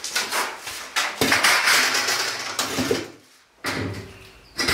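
Long sheet-metal profiles clattering and knocking as they are handled and set down: a run of rattling metal knocks for about three seconds, a brief pause, then a few more knocks near the end.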